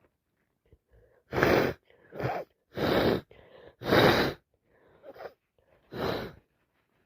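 A woman with a wet head cold sneezing in a fit: five loud, explosive bursts over about five seconds, with faint breathing between them.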